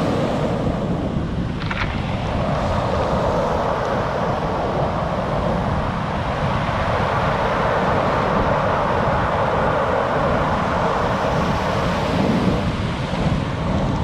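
Rough surf breaking and washing up a pebble beach: a steady rush of waves, with wind buffeting the microphone.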